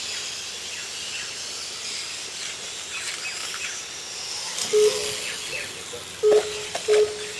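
High motor whine of 1/8-scale RC motorcycles racing, rising and falling in pitch as they accelerate and slow for the corners. About five seconds in come three short, loud beeps at one pitch.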